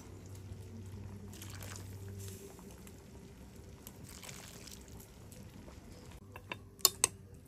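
Curry broth being poured into a glass serving bowl, soft liquid splashing and trickling, with two sharp clicks near the end.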